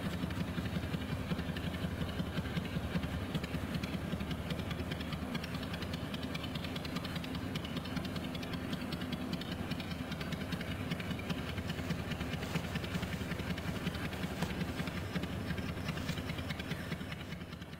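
Cloth rubbed hard and fast with a thick chrome-polish paste over a pitted chrome pipe, a steady rough scrubbing that works at iron rust showing through the chrome.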